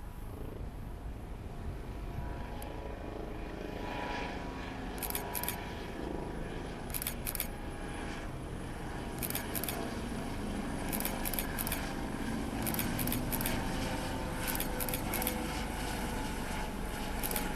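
Helicopter flying near, its engine and rotor drone slowly growing louder. Short high-pitched chirps in groups of two or three come every couple of seconds over it.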